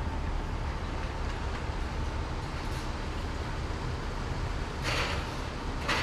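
Steady low rumble of vehicle traffic, with two short hissing sounds about five and six seconds in.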